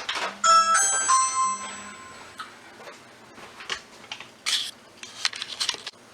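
A few bell-like chime notes ring and fade over the first two seconds. From about two and a half seconds in come scattered crinkles and rustles of paper and plastic packaging being handled.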